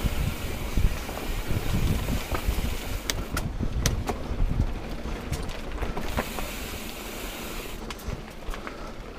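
Mountain bike rolling over a rocky dirt trail: tyre rumble and wind on the microphone, with scattered sharp clicks and rattles from the bike over the rocks.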